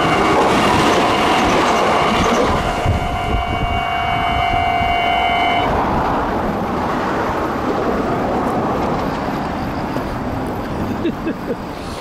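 Level crossing warning alarm ringing over the loud rushing rumble of a train going by. The alarm cuts off suddenly about five and a half seconds in, and the rumble slowly fades.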